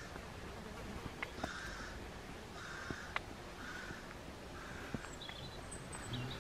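Faint, harsh bird calls repeated about once a second, with a few light clicks between them.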